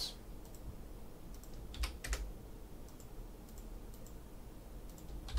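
A few light computer keyboard keystrokes: a quick cluster of about three roughly two seconds in and another one or two near the end, over a faint low hum.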